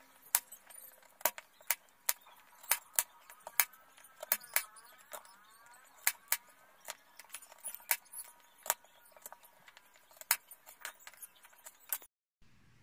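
Kitchen knife slicing bilimbi (kamias) fruit on a cutting board: crisp taps of the blade striking the board at an uneven pace, about two a second. The sound cuts out briefly near the end.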